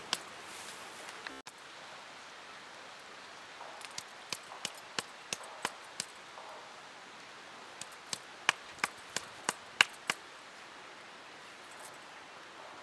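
A hand-held stone pounding thuthuvalai (climbing brinjal) leaves against a granite rock to crush them, in two runs of sharp taps at about three a second.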